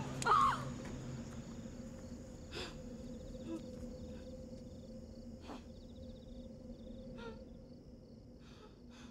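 Night crickets chirping in short pulsed trills over a low steady drone. A brief cry from the woman is the loudest sound, just at the start, and a few faint knocks follow.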